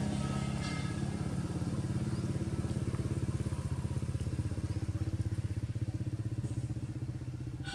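Vehicle engine running steadily at low revs, a low hum with a fast, even pulse.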